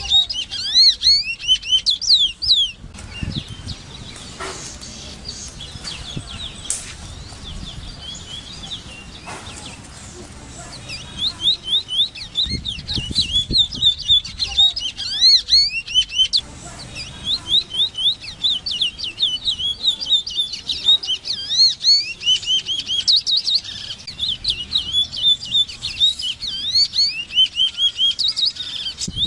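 Large-billed seed-finch (Sporophila crassirostris) singing: runs of rapid, sliding whistled notes. The song stops about three seconds in, comes back after a lull of several seconds, and then runs on with only a short break.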